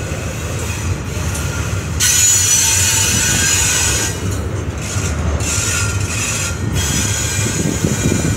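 Double-stack intermodal freight train rolling past close by: a steady low rumble of wheels on rail, with high-pitched wheel squeal that comes in sharply about two seconds in and returns a couple more times.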